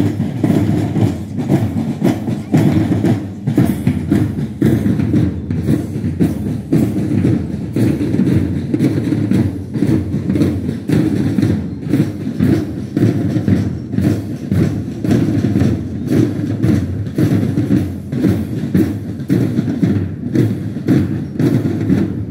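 Marching drums of a parade band beating a steady march rhythm, about two strokes a second over a dense low drumming.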